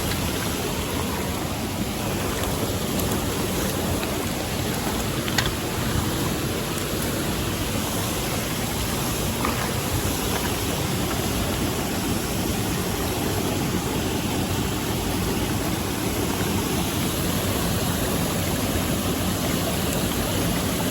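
Mountain stream rushing steadily over rocks, with a short sharp click about five seconds in.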